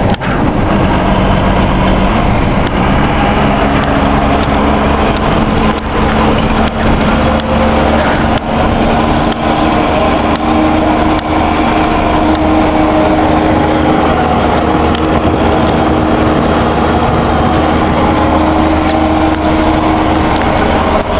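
Volkswagen 15.190 truck's turbocharged Cummins diesel running loud through a straight open exhaust as the truck drives under load. Its pitch rises a little about two to three seconds in, then holds steady.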